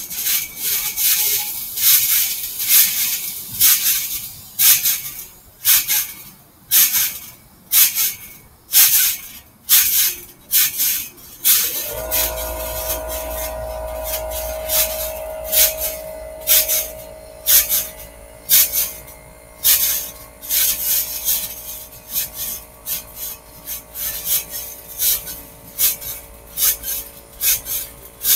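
Trampoline springs and mat rasping with each bounce, about once a second, as someone jumps on a trampoline. About halfway through, a steady low hum comes in under the bounces.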